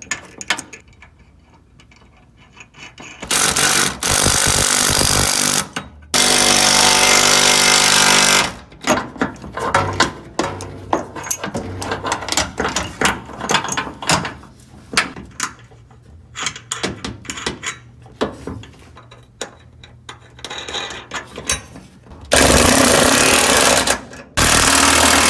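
A cordless impact wrench hammering bolts tight in four bursts of about two seconds each, with clicks and clatter of sockets and hardware in between. It is running down the bolts and nuts of a rear sway bar frame bracket.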